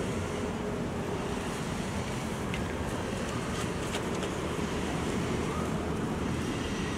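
Steady low rumbling outdoor background noise, with a few faint clicks around the middle.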